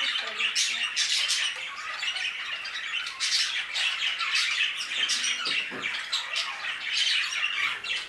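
A flock of budgerigars chattering and squawking, many short calls overlapping without a break.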